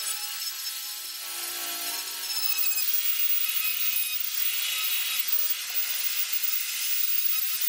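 High-speed handheld rotary carving tool whining as its bit grinds into burl wood. About three seconds in the sound shifts to a higher, hissier grinding as a different rotary tool with a fine pointed bit takes over.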